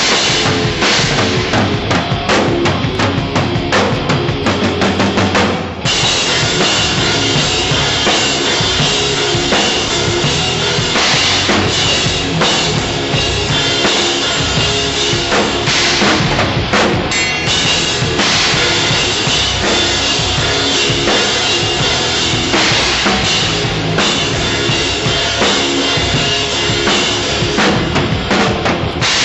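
Tama drum kit played through a rock song, with bass drum, snare and cymbals, and pitched band instruments underneath. About six seconds in the sound dips for a moment, then comes back with heavier cymbal wash.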